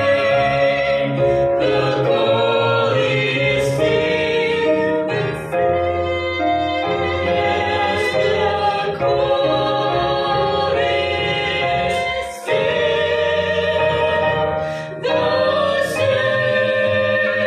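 Mixed vocal quartet of two men and two women singing a gospel song together in harmony through handheld microphones, with a few short breaks between phrases.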